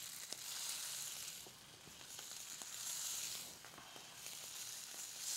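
Salmon fillets searing in smoking-hot oil in a stainless steel skillet: a sizzle that swells each time another fillet is laid in, then eases, with a few small pops.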